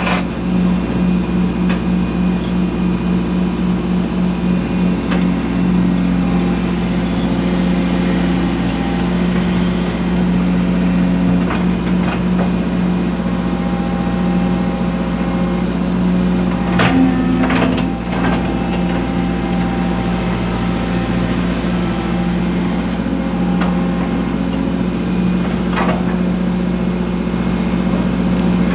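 Excavator's diesel engine running steadily under work, with a few short knocks about two-thirds of the way in and again near the end.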